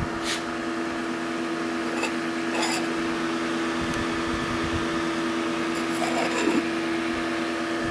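Steady hum of the test jig's electric cooling fan, blowing over a heated motorcycle cylinder barrel. There are a couple of light knocks about two seconds in, and a short scraping squeak about six seconds in as the round metal cover plate is lifted off the bore.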